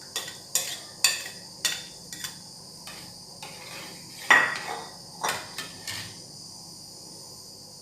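Spoon clinking and knocking against a cooking pot, several sharp knocks, the loudest a little past four seconds in. This is the foam being skimmed off barley-grit soup as it cooks.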